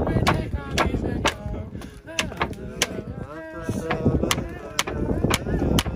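Music with a sharp drum hit about twice a second and a voice over the beat.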